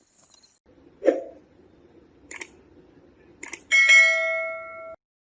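Three sharp knocks, then a bell-like chime struck once, ringing for about a second before cutting off abruptly.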